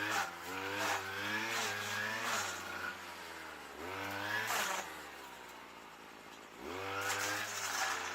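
A petrol engine running and being revved up and down over and over, its pitch rising and falling several times over a steady low hum, with a quieter lull just past the middle.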